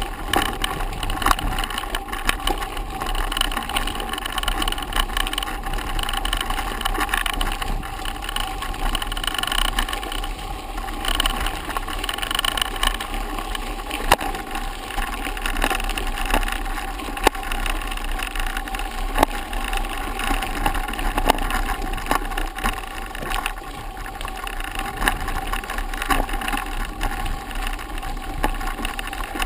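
Mountain bike rolling over a dirt and gravel forest road: a steady rumble of tyres and bike rattle, with sharp knocks now and then as it hits bumps.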